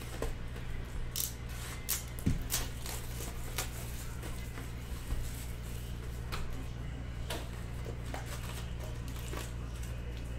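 Hands handling a cardboard Panini Optic trading-card box and opening its lid: scattered short taps, scrapes and rustles of cardboard and foil packs, thickest in the first few seconds, over a steady low hum.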